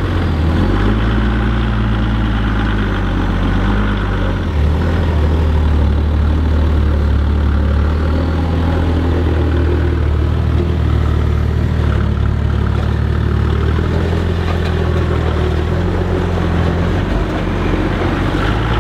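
A lifted 4WD's engine running at low revs under load as the vehicle crawls slowly up a steep rock wall. The revs step up about four seconds in, hold, then ease back near the end.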